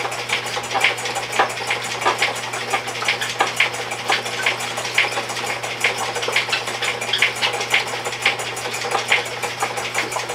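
Homemade pad dye machine running, its gears and rollers clacking in a regular rhythm of about three clicks every two seconds over a steady low hum.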